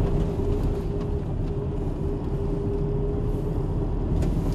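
Car driving along a road, heard from inside the cabin: a steady low rumble of engine and tyre noise with a constant hum.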